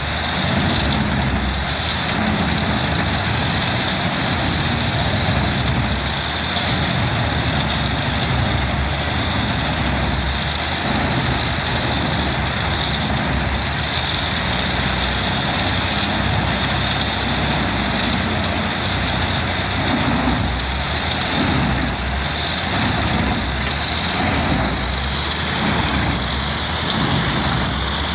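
Eschlböck Biber 84 wood chipper and its Steyr tractor running steadily under load, chipping logs and branches fed by the crane, with a steady high whine over the machinery drone.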